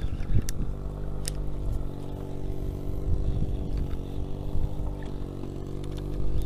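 A boat's engine running steadily with an even hum, with a few light knocks and clicks in the first second or so.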